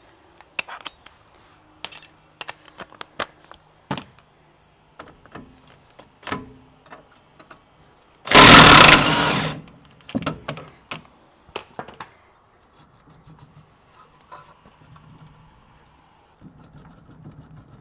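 Metal clicks and clinks of a hand spanner and tools working on the suspension bolts at the wheel hub, scattered irregularly. About eight seconds in there is one loud burst of rushing noise lasting about a second.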